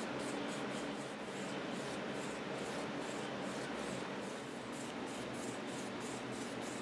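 A rag patting and rubbing degreaser over an old wooden table top, in quick even dabs about three times a second, over a steady low hum. The strokes are cleaning dirt and oil off the old finish.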